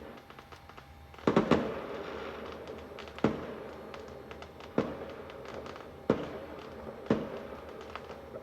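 Fireworks going off: a quick cluster of bangs about a second in, then single bangs every second or so, with a crackling haze between them.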